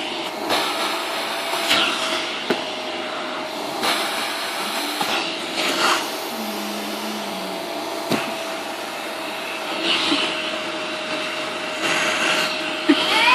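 Household vacuum cleaner running steadily with a constant whine. Its suction noise swells every few seconds, and there are a few light knocks.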